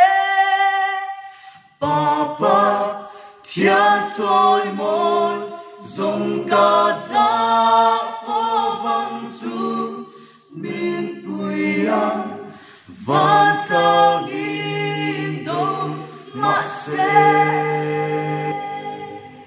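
Mixed-voice a cappella group of seven singing a Mizo gospel song in close harmony, women's voices above the men's low parts. The singing runs in phrases with brief breaks between them, the first about two seconds in.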